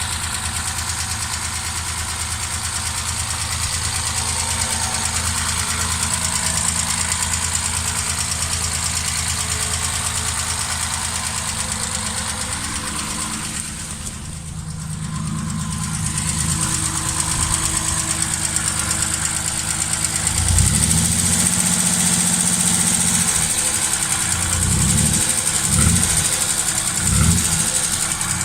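Triumph straight-six engine idling with a knock, then revved several times in the latter half. The knock is piston slap, which was first taken for a tappet or rocker shaft problem.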